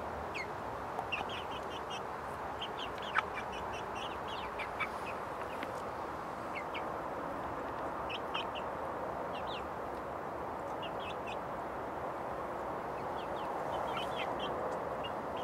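Young chickens, about seven weeks old, peeping: short high chirps in small clusters, coming and going all through, over a steady background noise. A single sharp click about three seconds in.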